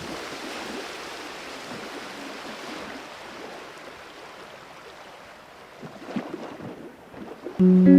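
Sea water washing and wind buffeting the microphone, a steady noisy rush that slowly fades. Acoustic guitar music comes in near the end.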